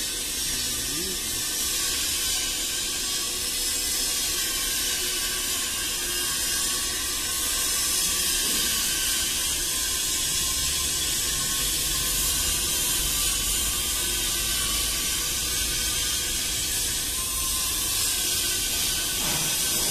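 Spray dryer running with a steady airy hiss over a faint low rumble, while it draws plain water feed from a bowl before the honey goes in.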